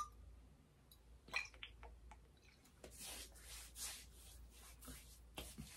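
Faint, soft swishes of hands rubbing and patting splash-on aftershave into the face, with a few small clicks and taps before and after.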